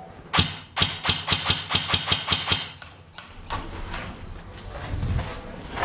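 Airsoft gun firing a quick string of about ten sharp shots in two seconds, around five a second, followed by fainter, scattered shots.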